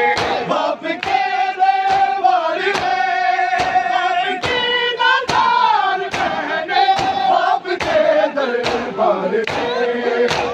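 A large crowd of men beating their chests in unison (matam), sharp slaps about twice a second. Under the slaps a chorus of voices sings long drawn-out notes of a noha lament.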